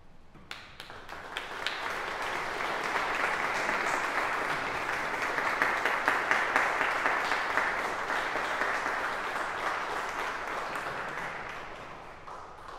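Audience applauding. The clapping breaks out about half a second in, swells over the next two seconds, then thins and dies away near the end.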